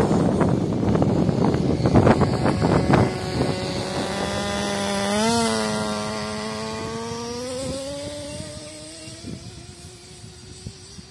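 Small two-stroke nitro engine of an FTX Carnage RC truck buzzing, with a quick blip of revs about five seconds in. It then winds up steadily in pitch as the truck accelerates away and fades with distance. Gusty wind noise on the microphone comes before it.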